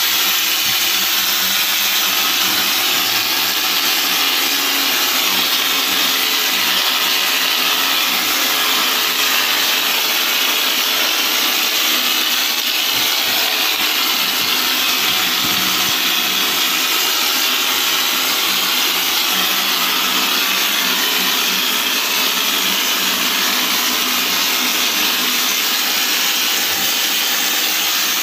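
Compressed-air texture spray gun (hopper gun) hissing steadily as it sprays textured coating onto a wall, with a machine running under it at an even level throughout.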